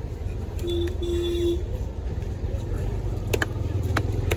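Heavy cleaver scraping along a silver carp and striking the wooden chopping block, with three sharp knocks in the second half. Under it runs a steady rumble of street traffic, and a vehicle horn toots twice briefly about a second in.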